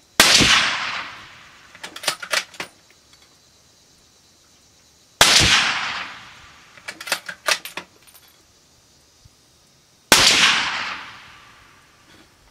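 Three suppressed shots from a bolt-action Remington 700 in .308 Winchester fitted with a Liberty Amendment suppressor, about five seconds apart. Each is a sharp crack that fades over about a second. After each of the first two comes a quick run of metallic clicks as the bolt is worked.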